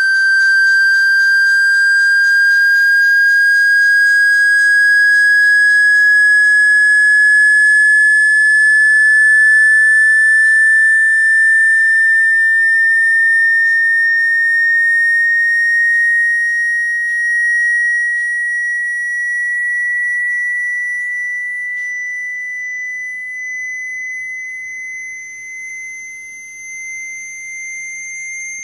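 A single high electronic sine tone rising slowly and evenly in pitch, from about 1,570 to 2,100 Hz. It is a speaker-cleaning tone sweep, played to shake water out of a phone speaker. The tone grows quieter over the last third.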